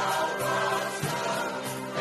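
A church choir singing a gospel song in Portuguese over instrumental accompaniment, with sustained chords and a beat about once a second.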